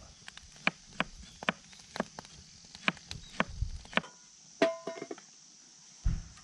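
Kitchen knife cutting ginger on a cutting board, sharp chops about two a second. About four and a half seconds in, a frying pan is set down on the metal camp stove with a short ringing clang, and a dull thump follows near the end.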